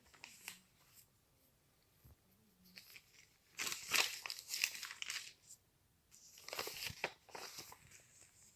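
Crinkling and rustling of something being handled, in two spells of about two seconds each: one starting about three and a half seconds in, the other about six seconds in.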